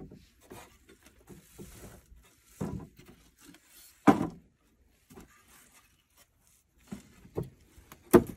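Framed paintings in a leaning stack being tipped forward one by one, their frames knocking against each other in a few short clunks with light rustling between; the loudest knocks come about four seconds in and near the end.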